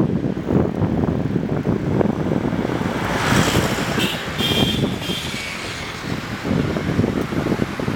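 Wind buffeting the microphone in uneven gusts, with a vehicle passing about three to five seconds in.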